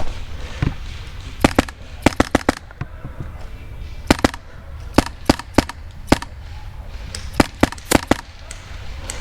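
Airsoft gun firing a string of sharp single shots, about fifteen in all, coming in quick clusters of two to four, over a steady low rumble.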